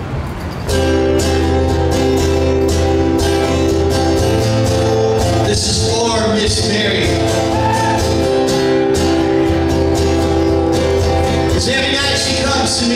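Acoustic guitar strummed in a steady rhythm, starting about a second in, with a singing voice coming in around the middle and again near the end.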